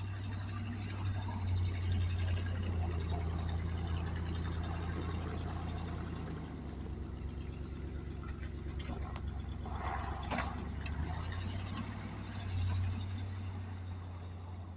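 Plow truck engine running steadily; its pitch drops about six seconds in and comes back up about five seconds later. A short louder rush of noise comes about ten seconds in.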